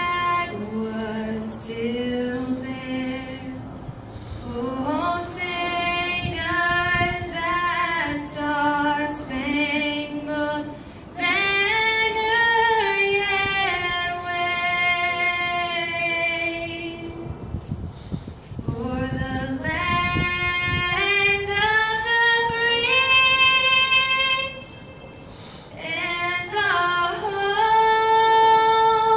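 A young woman singing solo and unaccompanied, holding long sustained notes with short pauses between phrases.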